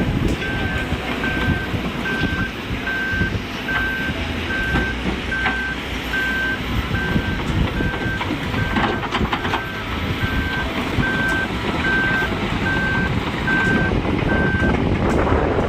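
A heavy vehicle's reversing alarm beeping steadily at a single pitch over the loud rumble of its diesel engine. The beeping stops near the end while the engine keeps running.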